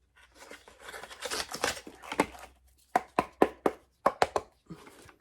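Hands handling a plastic detangling hairbrush and its packaging: a rustling scrape for about two seconds, then a quick run of sharp plastic clicks and taps.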